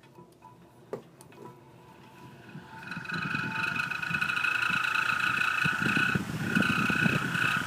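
High-velocity fan starting up. About three seconds in, a loud, steady, high-pitched squeal sets in from its motor bearings, over the rumble of the motor and air, and it breaks off briefly near the end. The squeal comes from dry bearings with no oil or grease left in them, which are going bad. A single click comes about a second in.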